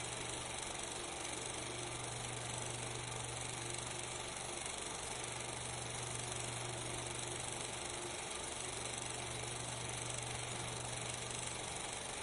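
Steady hiss with a constant low hum and no distinct sound events: the background noise of a transfer of a silent 16mm film.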